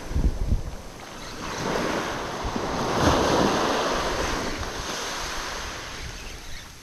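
Small surf waves breaking and washing up onto a sandy beach, swelling about two seconds in, with wind buffeting the microphone.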